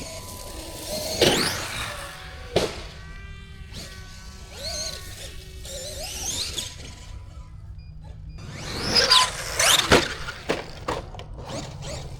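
Traxxas Maxx RC monster truck's 6S brushless electric motor whining as it spins up, rising in pitch, then a sharp crash as the truck lands hard. This happens twice, about a second in and again near the end.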